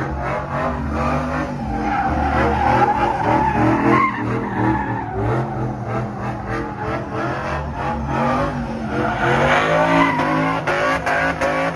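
Car engine held at high revs, its note rising and falling, while the spinning tyres squeal and skid through donuts.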